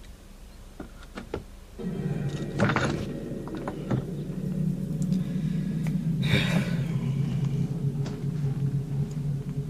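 Low, sustained film-score music, a held drone that comes in about two seconds in, with a few faint knocks and rustles over it.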